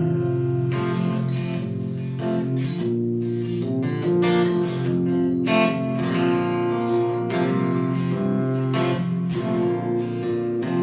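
Acoustic guitar strumming chords steadily in the instrumental outro of a country-style song.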